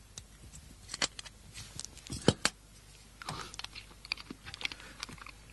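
Faint irregular small clicks and taps of pastilles being taken from their container, with one sharper click a little over two seconds in.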